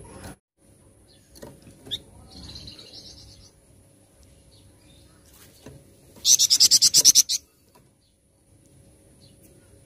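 Flamboyan songbird singing: a short, soft high trill about two seconds in, then a loud, rapid run of about ten high notes lasting just over a second.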